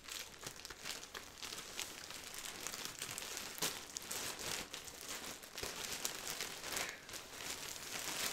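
Plastic poly mailer bag crinkling and tearing as it is pulled open by hand: an irregular run of crackles and rustles that grows louder partway through.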